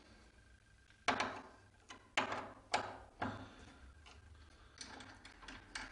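Several separate sharp metallic clicks and knocks of a screwdriver working the two fixing screws out of a door's rim cylinder lock, with quieter spells between them.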